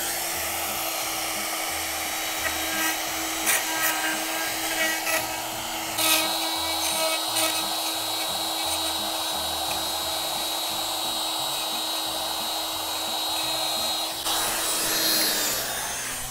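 DeWalt compact trim router with a spiral bit running steadily as it skims proud epoxy filler flush off a wooden board, working as a homemade router sled, with scattered clicks and scraping as the bit cuts. Near the end it is switched off and spins down.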